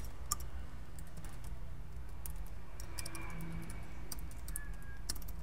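Typing on a computer keyboard: scattered, fairly faint keystroke clicks over a low steady hum.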